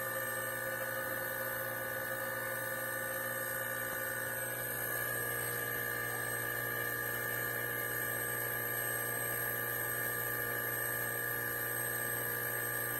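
Hermetic air-conditioner compressor running with a steady hum, pumping air into a converted fire-extinguisher tank as the tank pressure climbs.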